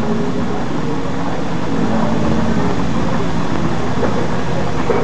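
Mother cat purring steadily and loudly right at the microphone while her newborn kittens nurse: a continuous, even rumble.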